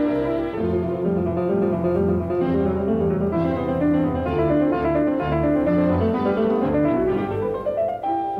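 Background music: a classical-style piano piece with many held notes, climbing in a rising run of notes near the end.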